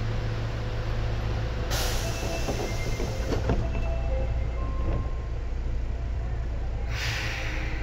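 Osaka Metro subway train with GTO-thyristor inverter control, heard from inside the car: a steady low hum with a few faint tones over it, broken by two short hisses of air, about two seconds in and near the end.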